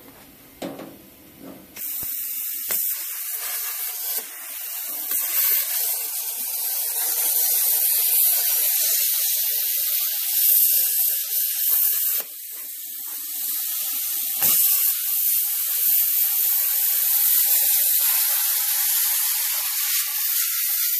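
Hand-held plasma cutter slicing through a sheet-steel door skin, a steady hiss of the arc and air. It starts about two seconds in, dips briefly a little past the middle and carries on.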